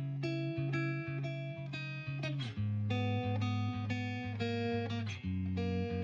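Background music: a plucked guitar picking steady notes over a bass line, changing chord about two and a half seconds in and again about five seconds in.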